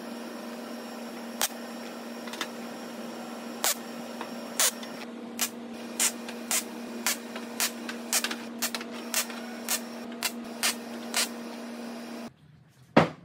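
MIG welder tacking steel T-nuts onto a steel sheet: a string of short crackling weld bursts, one to two a second and coming faster later, over a steady hiss and hum. The hiss stops suddenly near the end, followed by one sharp click.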